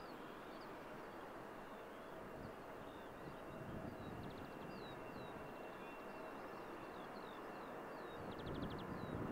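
Small birds chirping, with two short quick trills, over a faint steady rumble that swells slightly near the end: the distant engines of an Airbus A330 accelerating down the runway on its takeoff roll.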